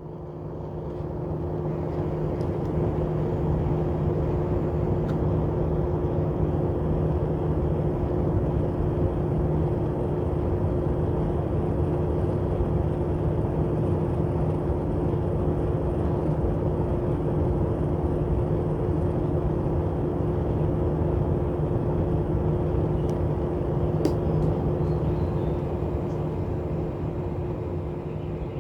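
Small battery-powered fans in a homemade cardboard air conditioner running, a steady motor hum with a rush of air. It builds over the first couple of seconds as they come up to speed, then holds level.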